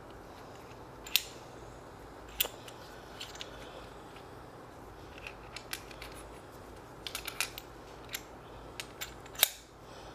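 Scattered small clicks and taps of tools and small pistol parts being handled on a workbench, the sharpest about a second in, about two and a half seconds in, and near the end.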